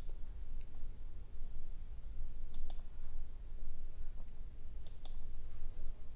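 A few sharp, scattered clicks, with a close pair about two and a half seconds in and another about five seconds in, over a steady low hum.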